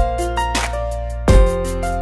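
Mobile phone ringtone music: a melody of held notes over a sustained bass line, with two deep bass hits, one at the start and one just past the middle.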